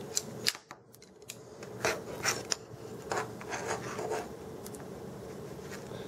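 Several short scrapes and rubs as minced onion is swept up off a plastic cutting board and packed into a plastic measuring spoon with the fingers, over a faint steady hum.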